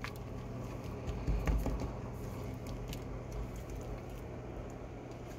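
Faint patter and light ticks of a raw chicken wing being pressed and turned by hand in dry crumb breading in a plastic tub, with a soft low bump about a second and a half in, over a steady low hum.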